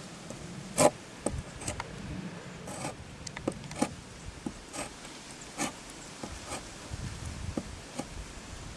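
Short, irregular scraping strokes, roughly one a second, over a faint background hiss.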